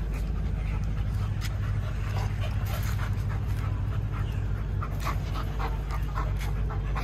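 Tibetan mastiff panting with its tongue out, in short quick breaths, over a steady low rumble.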